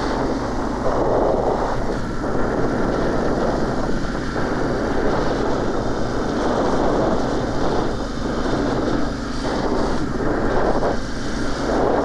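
Motorcycle engine running steadily while riding, under a heavy rush of wind on the microphone.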